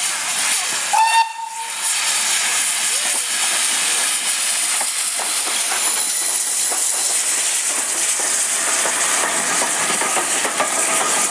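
Steam locomotive passing at close range, with a loud, steady hiss of escaping steam. About a second in there is one short whistle toot.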